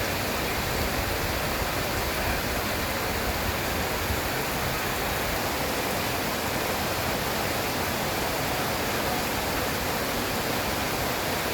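Heavy rain falling steadily: a dense, even hiss that holds at one level throughout.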